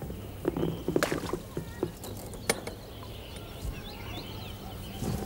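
Outdoor riverbank sounds: a few sharp knocks and rustles of fishing gear being handled at the water's edge, with faint bird chirps in the background.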